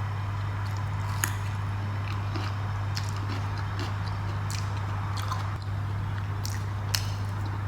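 A person chewing and eating a meal of rice and dal close to the microphone, with scattered short sharp clicks, the loudest about a second in and near the end, over a steady low hum.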